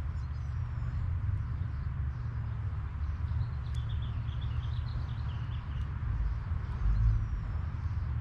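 A bird chirping in a quick run of short high notes for about two seconds, with a few faint high whistles before and after, over a steady low rumble and hiss.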